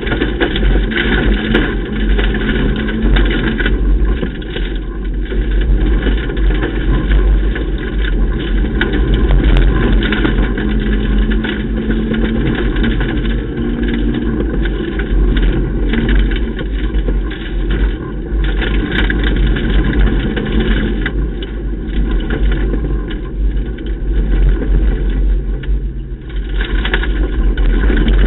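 Ford Ka rally car at speed on a stage, heard from inside the cabin: the engine pulling hard under loud road noise and a heavy low rumble, easing off and picking up again several times.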